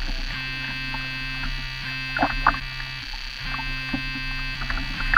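Background music: a steady buzzy sustained chord of many held tones, its low notes dropping out briefly about three seconds in, with a few short sharp accents.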